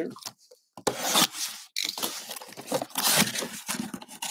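Small cardboard box being opened by hand: irregular scraping and tearing of cardboard and packing tape as the flaps are pulled apart.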